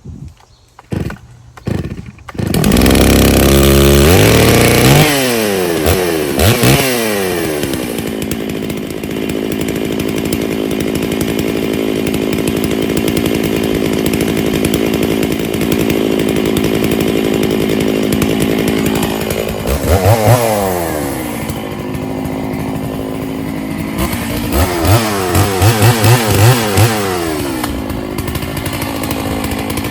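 Stihl chainsaw pull-started with a few short pulls, catching and revving up and down, then running steadily. It revs again about two-thirds of the way through and gives a series of quick throttle blips near the end.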